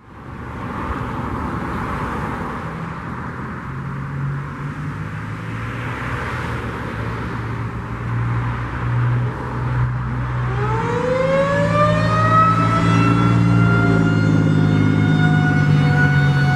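A low background rumble, then about ten seconds in a Federal Signal 2001-SRNB outdoor warning siren starts winding up on its monthly test. Its single tone rises steeply and levels off into a loud, steady wail near the end.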